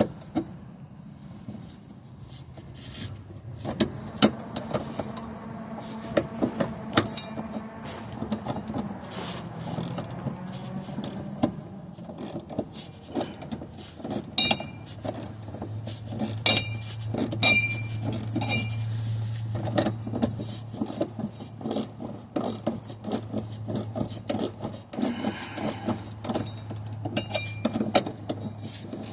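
Metal hand tools clicking and clinking as a wrench tightens the nuts on a heim-joint shifter rod, with several short ringing metallic chinks, over a steady low hum.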